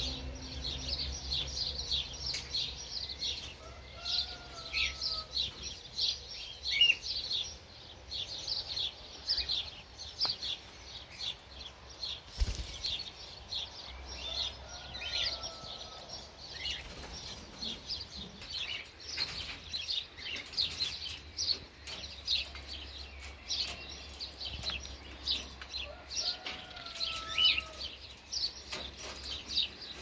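Aviary birds chirping busily: many short, high chirps throughout, with a few clear whistled calls that rise and fall about four, fifteen and twenty-seven seconds in. A single knock comes about twelve seconds in.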